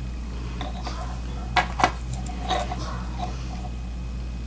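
Two light clicks of small plastic and metal parts being handled as a wire is worked onto a plug's screw terminal, with faint handling noise over a steady low hum.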